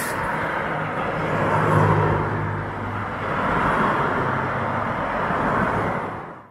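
Road traffic passing on the street: car tyre and engine noise rising and falling, loudest about two seconds in and again about four seconds in.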